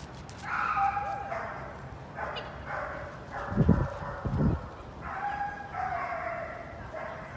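Dogs barking and yelping again and again, several calls overlapping. Two dull low thumps come about three and a half and four and a half seconds in.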